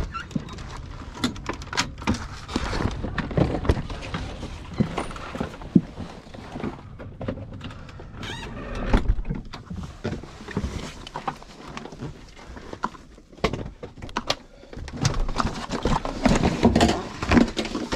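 Irregular knocks, clunks and rustling from someone climbing into a camper and moving about inside, handling its door and fittings, with handheld-camera handling noise. The sharpest knock comes about six seconds in, and the knocking gets busier near the end.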